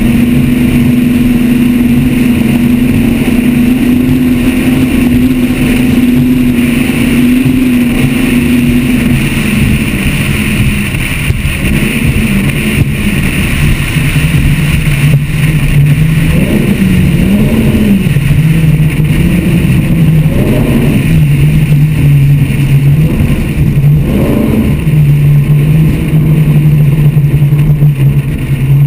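Engines of a Motion Powerboats 43GT Shelby SuperCat catamaran running at low speed. The engine note drops about a third of the way in, then rises and falls in several short blips of throttle before settling into a steady lower note.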